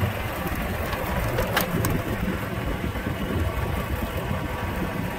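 Car driving slowly, heard from inside the cabin: a steady, rough low rumble of engine and tyres, with two short clicks about one and a half seconds in.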